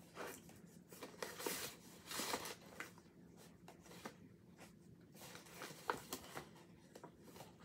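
Hands rummaging inside a paper shopping bag: irregular rustling and crinkling, with a few sharper crackles about six seconds in.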